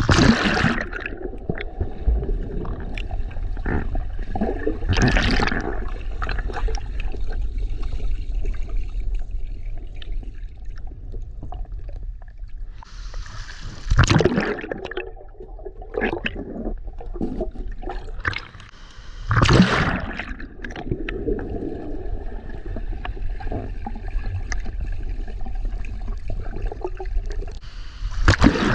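Water sloshing and gurgling close to the microphone over a steady low rumble of rushing water, muffled, with several louder splashing surges: about five seconds in, about fourteen seconds in and about nineteen seconds in.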